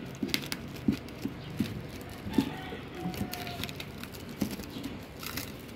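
Scissors snipping through thin black plastic wrapping on a cardboard box, with irregular crinkles and sharp clicks as the plastic is cut and handled.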